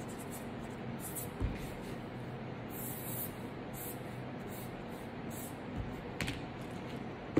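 Pen strokes scratching on a paper notepad as a circle is drawn and lines are ruled across it, over a steady hiss. There is a low thump about a second and a half in and a short click near the end.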